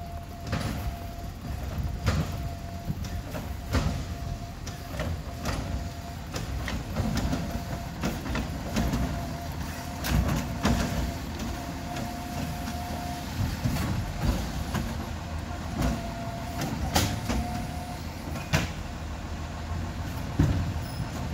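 Labrie side-loader recycling truck backing slowly with its diesel engine running and a beep repeating about once a second. Frequent clanks and rattles come from the truck body and the bins.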